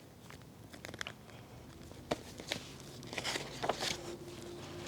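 Soft rustling with scattered light clicks and taps from a picture book being handled, a little louder in the second half.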